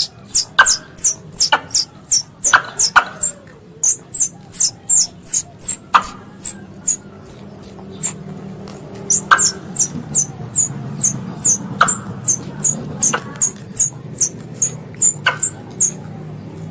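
Squirrel calling: a fast run of short, very high-pitched chirps, each dipping slightly in pitch, about two to three a second, broken by sharp clicks every second or two. It is the kind of call used as a lure to draw squirrels in.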